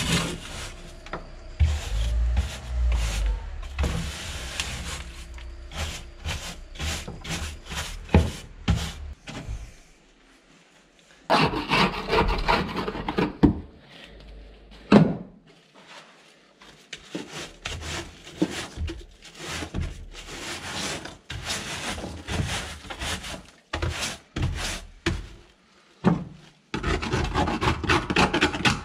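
Loose rust scale and debris being scraped and scooped off a Land Rover Discovery's rusted steel floor pan with a dustpan, a scraper and a gloved hand: irregular gritty scrapes with many small clicks and knocks. There is a longer, louder scraping stretch about midway and another near the end.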